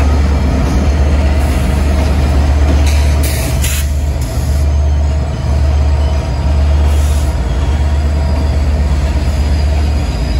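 A train running: a steady, loud, deep rumble with a few short high hisses about three seconds in and again about seven seconds in.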